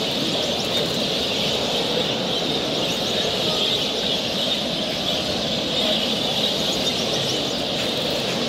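Dense, steady chorus of many caged canaries and finches chirping and singing together, with a few sharper high chirps standing out, over a low, even background noise.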